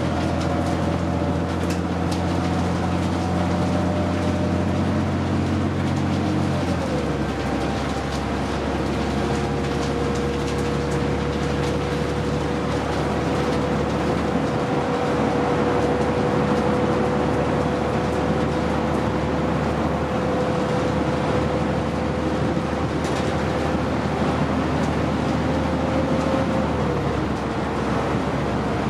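Cabin of a 2009 New Flyer D60LFR articulated diesel bus under way: the engine's steady drone shifts lower about seven seconds in, over constant road noise. A steady whine runs alongside and steps down in pitch near the end.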